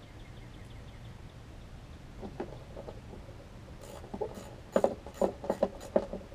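Hand-work on a push mower's engine and deck: a hand tool and parts clicking and knocking against each other. The sharp clicks start about two seconds in and come thicker and louder near the end.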